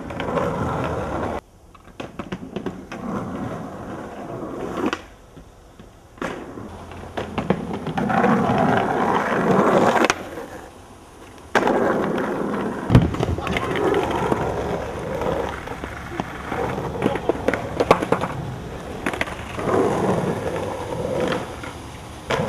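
Skateboards rolling over rough ground, with sharp clacks of board pops and landings; the loudest clack comes about halfway through. The sound cuts in and out abruptly several times.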